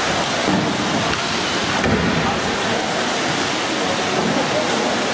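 Kayak paddles splashing and water churning in an indoor pool hall, blending into a steady wash of water noise.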